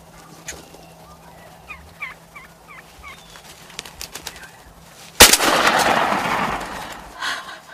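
A few short turkey yelps, then about five seconds in a single shotgun shot at a wild turkey tom, one sharp, very loud crack. It is followed by a couple of seconds of rough noise that dies away as the hit tom flops and flaps on the ground.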